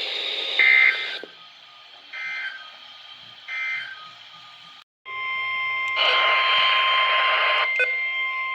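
NOAA Weather Radio alert audio: three short bursts of warbling data tones about a second and a half apart, the end-of-message code of the warning just read, then after a short break the steady, high-pitched weather alert tone for the next warning starts, with a burst of radio static over it for about two seconds.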